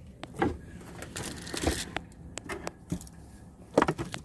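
Handling noises in a small space: scattered light clicks and knocks, with a brief rustle about a second in and a couple of sharper knocks near the end.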